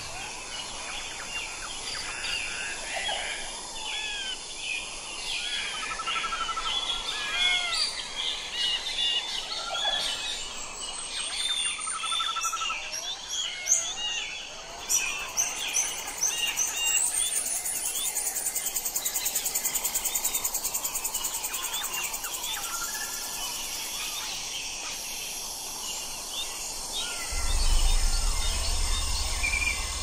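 Many birds chirping and calling over one another, with a fast, high insect trill through the middle. A low steady hum comes in near the end.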